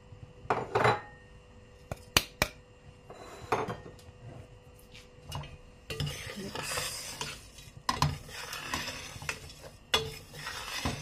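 Metal spoon stirring dry ground sesame seeds and chopped nuts around a stainless steel pan. There are a few sharp clinks of spoon on pan in the first few seconds, then steady scraping strokes from about halfway.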